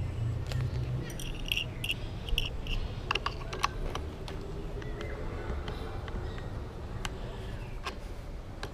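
Light metallic clicks and taps of an aftermarket GMA scooter side mirror being turned and screwed onto its handlebar mount by hand, over a low background rumble. The clicks come in a cluster about one to four seconds in.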